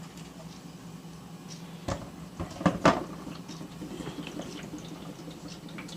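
A few knocks and clicks, loudest about two to three seconds in, from handling the filled humidifier as it is moved, over a low steady hum.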